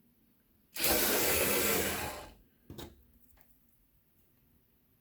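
A LEGO 15-hole beam spun by hand on a tan EV3 axle connector, giving a whirring rush for about a second and a half that dies away as it slows, followed by a single click.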